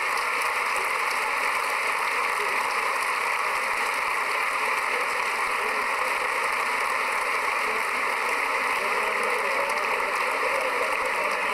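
A large crowd's voices blending into a steady, dense hubbub, with no single voice or clapping standing out.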